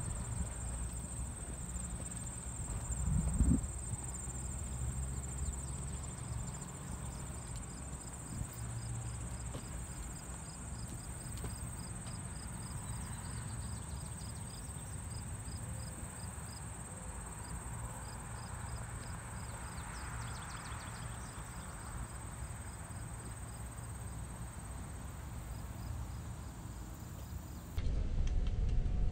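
Insects singing: a high, steady drone with a row of regular chirps over it, above a low rumble on the microphone. There is one thump about three seconds in.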